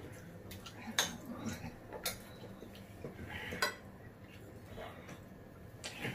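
Metal spoons and chopsticks clinking against ceramic bowls and plates during a meal, several separate sharp clinks.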